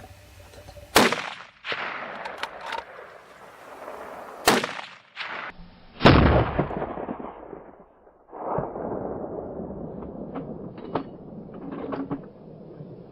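Three gunshots: one about a second in, then two more a few seconds later, close together, the last the loudest. Each has a trailing echo.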